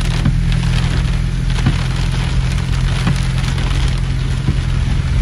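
Heavy rain drumming on a car's roof and windshield, heard from inside the car, over a steady low hum. A faint tick recurs about every second and a half.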